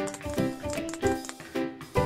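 Background music: a melody of pitched notes over a regular pulse.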